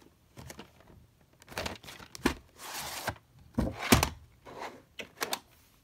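A VHS cassette being slid out of its cardboard sleeve: scattered clicks, a short scraping rustle of plastic against cardboard, then two knocks close together as the plastic cassette is handled and set down, with a few more clicks near the end.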